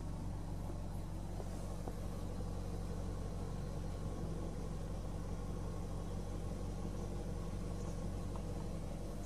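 BMW Alpina B10 V8S (E39) 4.8-litre V8 idling steadily.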